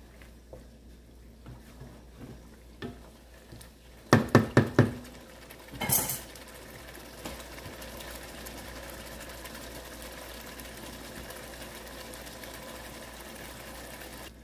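A wooden spoon stirs thick stew in a stainless steel pot with soft scraping ticks. About four seconds in, four sharp knocks of the spoon on the pot, then a short clatter. From there on the stew simmers with a steady soft bubbling hiss.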